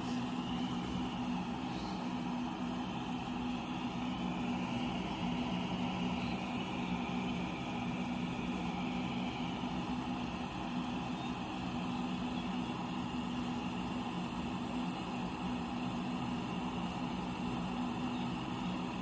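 Electric baby-bottle sterilizer and dryer running: a steady hum with a low droning tone that does not change.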